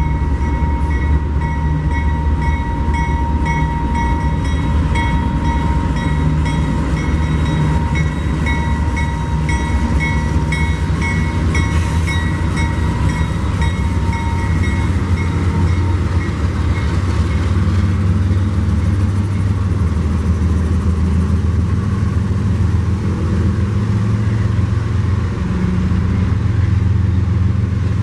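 A train running by with a loud, steady low rumble. Regular clicking at about two a second and a thin ringing tone carry on until about halfway through, then fade out.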